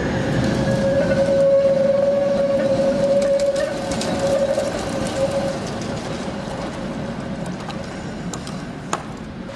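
Electric street trams rolling past on their rails: a rumble with a steady whine that fades out after about five seconds as they move off. A sharp knock near the end.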